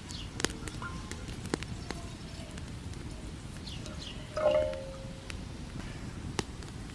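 Water pouring from a bottle into a stainless steel camping kettle, over the crackle of a wood campfire. About four and a half seconds in comes the loudest sound: a metallic clink with a short ring.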